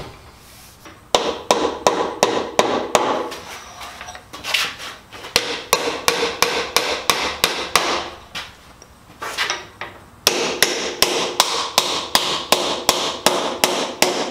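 Hammer driving wooden dowels into the offset, drawbored holes of a breadboard-end joint on a tabletop, pulling the joint tight. The blows come in quick runs of about four a second, with short pauses between runs.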